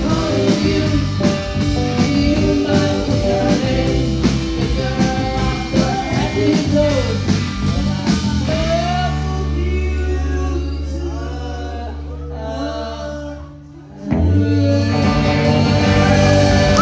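Live garage rock band playing: drums, electric guitar and bass under a sung vocal. Past the middle the drums stop and a held bass note carries the voice while the sound thins out, then the whole band crashes back in near the end.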